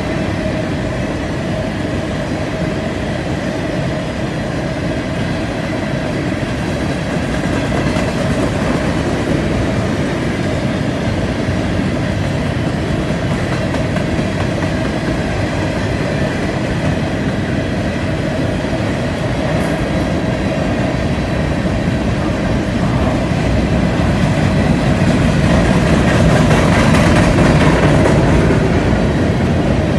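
Covered hopper cars of a 207-car freight train rolling past on a curve: a steady rumble of steel wheels on the rails, growing louder a few seconds before the end.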